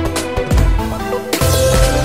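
Background music with a heavy pulsing bass beat; the bass drops away about half a second in and comes back near the end.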